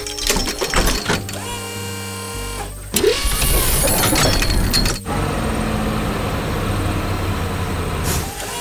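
Animated heavy-machinery sound effects: a vehicle engine running, with a sudden loud crashing clatter from about three to five seconds in.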